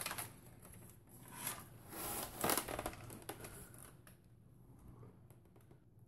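Power supply cables and the steel computer case being handled: rustling and scraping with light clicks, a few louder bursts in the first three seconds, then only faint clicks.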